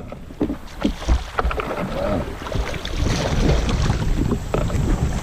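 Kayak on a fast, flooded creek: water rushing and splashing around the hull, with wind rumbling on the microphone and a few short knocks against the boat.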